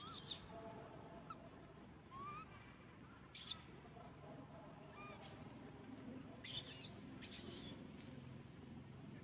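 Young long-tailed macaques squealing while they wrestle, giving about four short, high-pitched calls that bend in pitch, the loudest about two-thirds of the way through.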